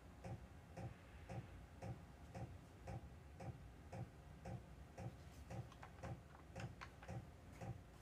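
Faint, steady ticking of a clock, about two ticks a second. In the second half a few light, irregular clicks of something being handled are added.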